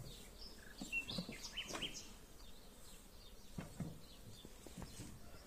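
Birds chirping in short, high calls, with several brief knocks scattered through.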